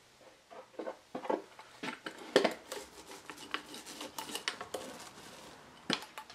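Small clicks and clatter of a glue bottle being squeezed and handled, with one sharp clack about two and a half seconds in, then a small roller spreading white glue across a wooden panel as a run of quick sticky ticks. A single knock comes near the end.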